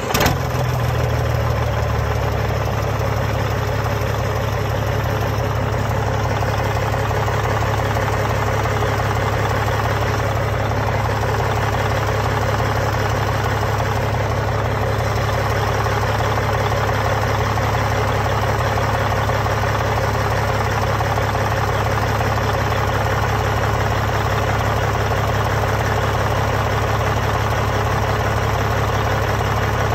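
Caterpillar C13 ACERT inline-six diesel engine, out of its 980K wheel loader, idling steadily just after starting. It settles into an even idle within the first couple of seconds.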